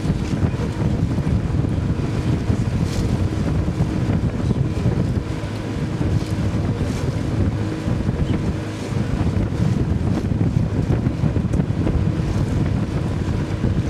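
Wind buffeting the microphone on a moving river boat, a steady low rumble, with the boat's motor running at an even pitch underneath.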